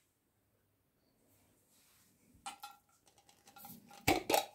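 A glass jar being handled, with faint clinks after a couple of seconds of near silence, then two sharp clicks near the end as its metal twist-off lid is wrenched open.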